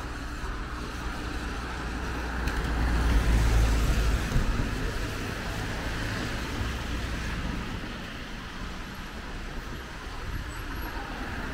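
Road traffic on a wet street: tyre hiss and engine rumble from passing cars, swelling as a vehicle goes by about three to four seconds in, then settling to a steadier background.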